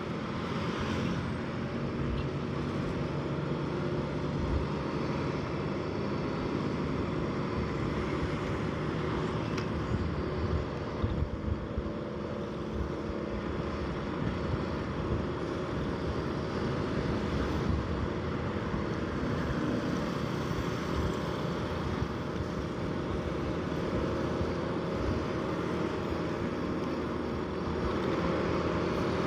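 Motorcycle riding at steady speed on an open road: the engine runs evenly under continuous road and traffic noise.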